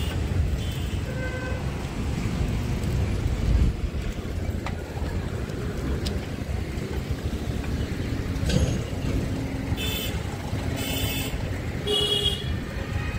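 Road traffic heard from a moving vehicle: a steady low rumble of traffic and road noise, with short vehicle-horn toots three times, about a second apart, in the last few seconds.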